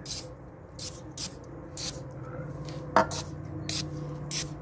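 Aerosol can of silicone lubricant sprayed in short bursts, about seven quick hisses, with a sharp knock about three seconds in.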